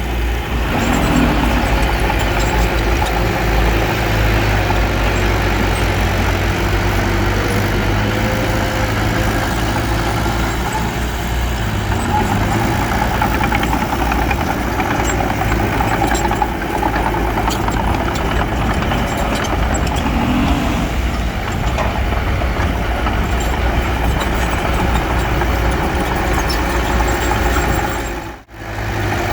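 Heavy diesel engine of earthmoving equipment, a bulldozer or dump truck, running steadily with a deep, continuous drone. The sound drops out briefly near the end.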